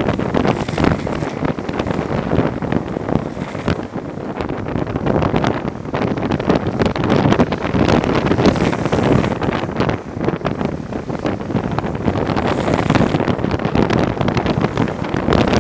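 Wind buffeting the microphone of a camera skating downhill at speed, over the rumble of longboard wheels rolling on coarse asphalt. The noise is loud and unbroken, surging and dipping unevenly.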